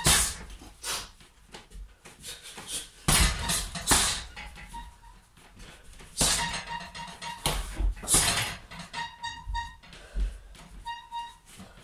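Punches landing on a hanging heavy bag, several heavy hits spaced a second or more apart. Between the hits, the bag's chain and hook on the steel stand squeak in short runs of high chirps as the bag swings.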